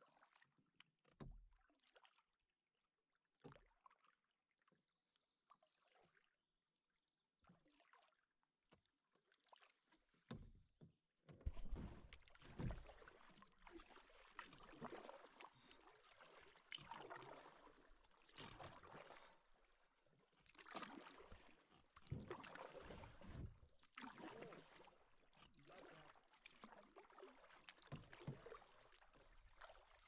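Faint canoe paddle strokes in water: a few scattered splashes at first, then from about a third of the way in a steady run of swishing strokes, roughly one every second or two.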